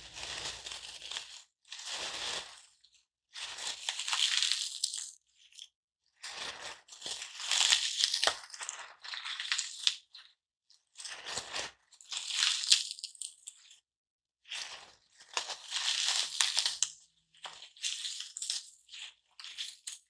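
Garden foam block being cut, a staticky, crackling rasp that comes in about nine separate strokes of a second or two each, with brief pauses between them.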